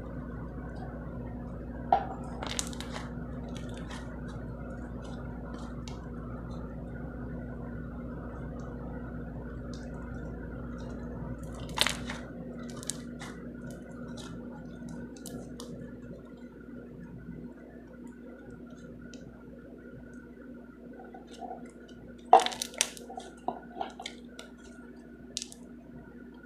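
Slime being squished by hand, with a few sharp pops and crackles, the loudest cluster near the end, over a steady low hum.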